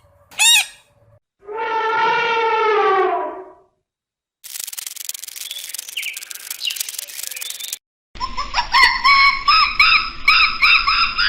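A string of separate animal calls: a short chirp, then one long call falling in pitch, then a hissy stretch with a faint chirp, and from about two-thirds of the way through, a fast run of repeated harsh bird calls.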